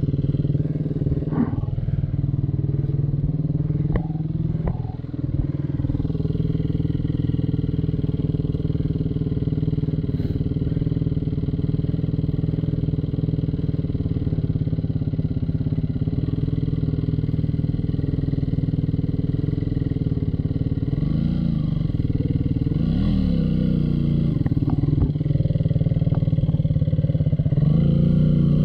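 Off-road motorcycle engine running at low, steady revs, with a few brief rises and falls in pitch from throttle blips. The last blip comes near the end, with the revs climbing.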